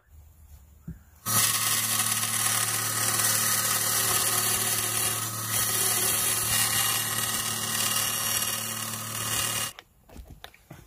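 Bandsaw running and cutting a small sheet of Lexan polycarbonate: a steady motor hum under the blade's hiss. It starts about a second in and cuts off suddenly near the end.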